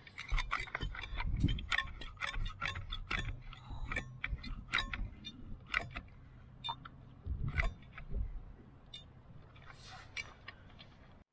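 Metal frame caulking gun being worked to squeeze silicone sealant: repeated sharp clicks and rattles from the trigger and plunger rod, thick at first and sparser in the second half, over a low steady hum.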